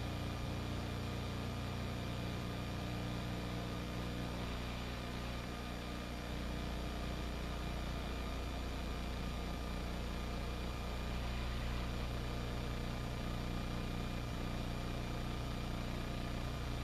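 Police helicopter's engine and rotor drone, a steady low hum with a faint steady whine above it.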